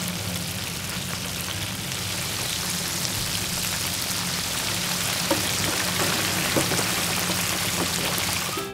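King shrimp deep-frying in hot oil: a steady, dense crackling sizzle over a low hum, with a few louder pops about five to six and a half seconds in.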